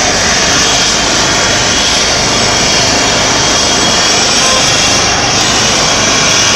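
Trauma helicopter's turbine engines running on the ground with the main rotor turning: a loud, steady rush of engine and rotor noise.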